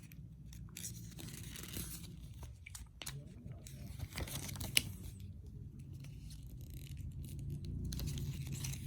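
Paper rustling and crinkling as the pages of a folded paper instruction manual are handled and turned, in soft irregular bursts, with one sharp click a little before halfway through.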